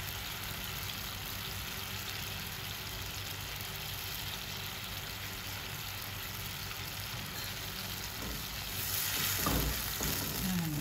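Mushroom sauce sizzling steadily in a hot nonstick frying pan. Near the end a silicone spatula stirs through it and the sound grows louder.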